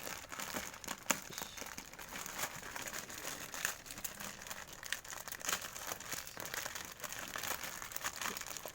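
Packaging of a parcel crinkling and rustling in irregular bursts as it is handled and pulled open, hard to open.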